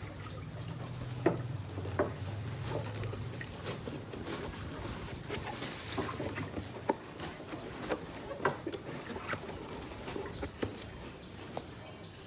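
Scattered clicks, taps and rustles of a speaker's packaging being handled and opened, with a low hum in the first few seconds.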